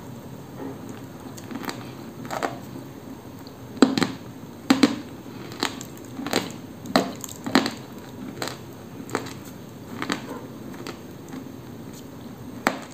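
Dry, crisp crunching of a grey-green lump of koksol being bitten and chewed close to the microphone: a run of sharp crunches, roughly one a second, loudest through the middle.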